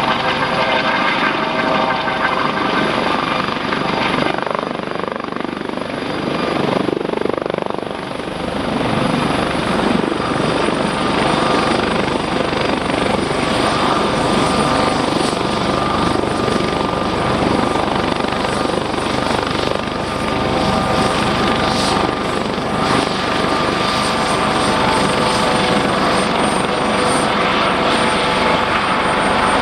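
U.S. Coast Guard MH-65 Dolphin helicopter landing: rotor running and turbines whining steadily as it hovers low in its own dust and settles onto the ground. The high turbine whine drops slightly in pitch about ten seconds in, and the rotor and engines keep running after touchdown.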